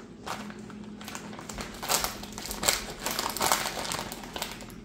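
Plastic pepperoni package crinkling and crackling irregularly for a few seconds as hands pull slices out of it.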